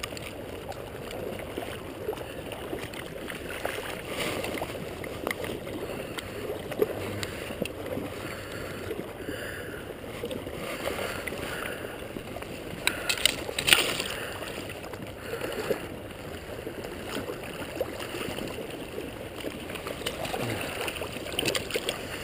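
River water lapping and gurgling close by, a steady rush of current, with a brief louder splash about thirteen seconds in.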